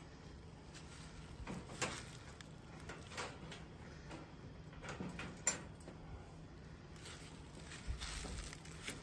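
Wire-mesh live trap being handled and set: a handful of light metallic clicks and rattles, the sharpest about halfway through, with a soft bump near the end.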